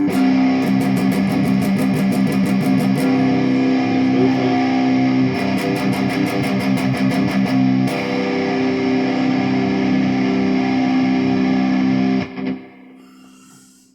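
Jackson Dinky electric guitar played distorted, with its tone knob rolled fully down (closed) to test a tone capacitor. Sustained chords alternate with two runs of fast picking. The playing stops about twelve seconds in and rings out. With this capacitor the closed-tone sound is a little bright.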